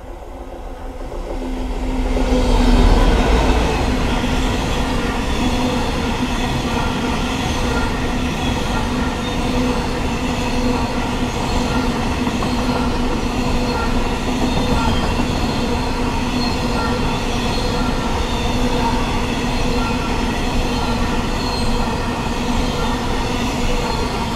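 Class 66 diesel freight locomotive's EMD two-stroke engine passing close, loudest about three seconds in. A long train of coal hopper wagons follows, their wheels rolling over the rails in a steady, even noise with a few held tones.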